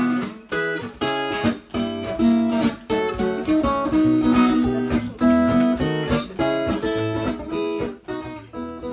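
Acoustic guitar strummed in chords, an instrumental passage between sung verses with no voice, getting quieter near the end.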